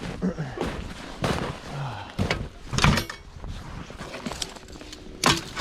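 Several sharp knocks and thumps, irregular and about a second apart, the loudest near the middle and near the end, with a couple of brief falling voice-like sounds early on.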